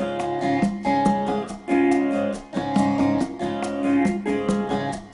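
Background music: a guitar strumming a rhythmic chord pattern, with the chords changing about once a second.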